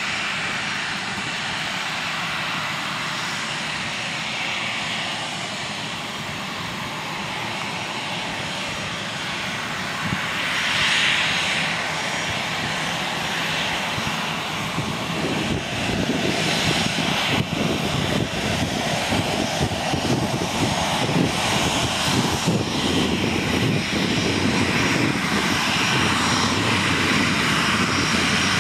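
Boeing 737-800's jet engines running at low taxi power as the airliner taxis past. A steady jet whine and rumble swells briefly near the middle and grows louder and rougher in the second half as the aircraft turns toward the listener.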